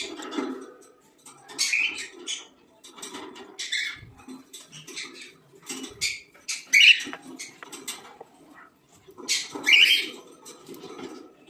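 Small birds giving short, harsh chirps and squawks in irregular clusters. The loudest calls come about seven seconds in and again near the tenth second.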